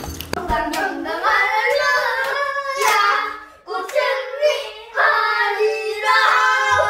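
A young child singing loudly in a high voice: several sung phrases with short breaks between them.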